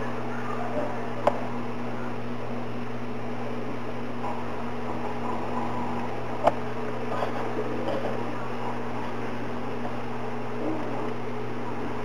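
Steady electrical hum from a running motor or appliance, with two sharp clicks, one just over a second in and one about halfway through, as the power bank and multimeter probes are handled.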